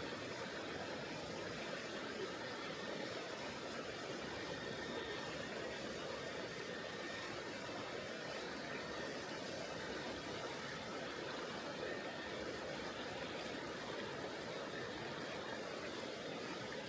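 Tonghou River, a mountain stream, flowing: a steady, even rush of water.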